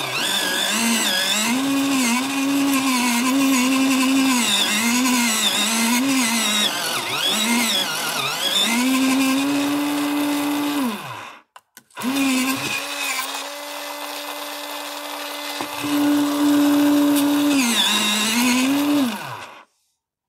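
X-ACTO Mighty Mite electric pencil sharpener grinding a pencil. The motor's whine wavers and dips in pitch as the pencil is pushed in and loads it. It stops about eleven seconds in and starts again a moment later. It then runs quieter at a steady pitch for a few seconds, grinds louder again, and stops shortly before the end.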